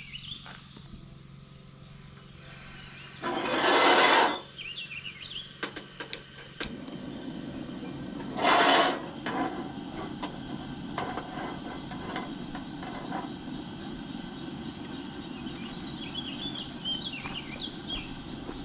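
Camp stove burner lit under a cast iron skillet: two short loud hissing bursts, then the burner's steady low rush running on. A few bird chirps near the end.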